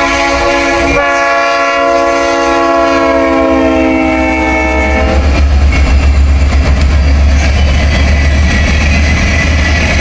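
Norfolk Southern 6669's multi-chime air horn blowing a chord as the locomotive passes close by. The chord drops in pitch about a second in and cuts off about five seconds in. After that comes a deep rumble of the following locomotives and passenger cars rolling past, with wheels clacking over the rail joints.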